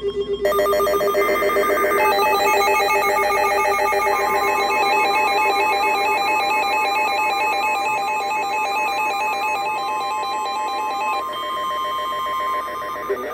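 Several emergency alert tones sounding over one another, most of them rapidly pulsing or alternating, signalling a severe thunderstorm warning. A steady single tone joins about four seconds in and stops shortly before the end.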